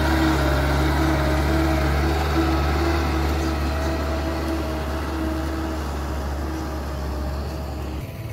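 Loaded light diesel truck pulling up a dirt slope, its engine running steadily under load with a low, even pitch and slowly fading as it moves away.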